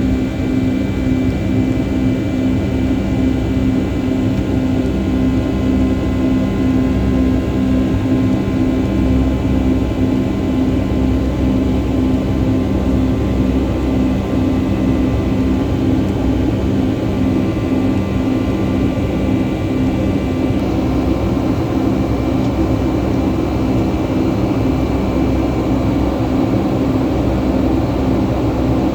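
Jet engines and rushing air heard from inside the cabin of a Boeing 757-200 in the climb after takeoff: a steady rumble with a few steady hum tones. Some of the higher tones stop about two-thirds of the way through.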